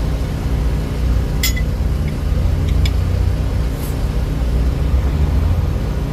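An engine idling with a steady low rumble. A few sharp metallic clicks come about one and a half seconds in and again near three seconds.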